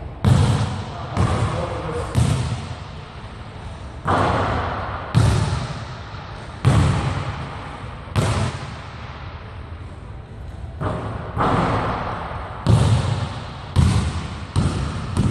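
Basketball bouncing on a gym's hardwood floor: about a dozen sharp thuds at uneven intervals, each ringing on in the hall's echo.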